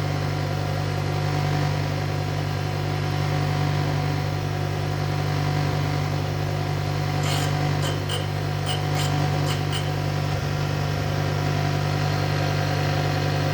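Connecting-rod grinding machine running with a steady hum, its abrasive wheel scraping lightly against the rod's parting face in several short touches about seven to ten seconds in. This is a light test cut to see whether the wheel cuts evenly all the way around the rod.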